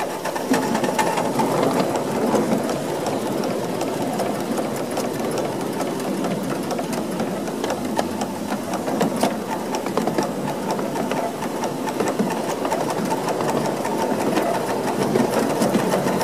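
Krauss 5-inch gauge miniature steam locomotive running along the track, with a rapid, even clatter of its wheels and motion on the rails, heard from the driver's seat.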